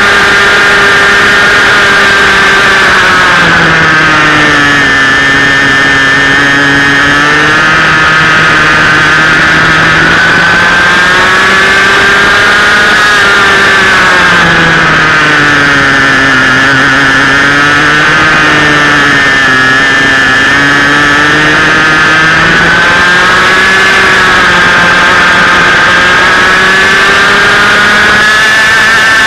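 Two-stroke 125cc TAG go-kart engine at racing speed, loud and close, its pitch dropping and climbing again several times as the kart slows for corners and accelerates out of them.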